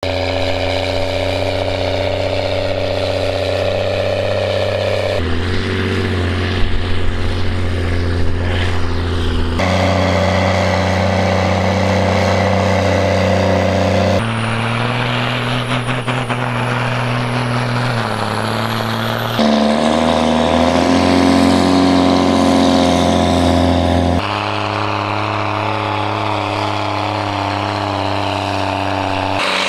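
Case IH tractor diesel engines running hard under load while pulling a weight-transfer sled: a steady, loud engine drone. It jumps to a different engine note every four to five seconds as one short pull gives way to the next.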